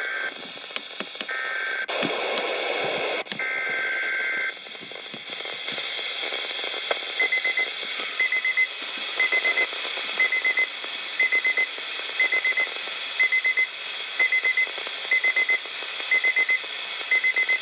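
Weather radio broadcast sending its SAME alert header: three buzzy digital data bursts of about a second each. These are followed by the receiver's alert beeper sounding in quick groups of four high beeps, about once a second, over steady radio hiss.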